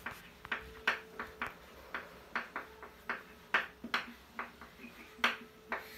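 Chalk tapping and scratching on a chalkboard as words are written: a quick, uneven run of short clicks, about three a second.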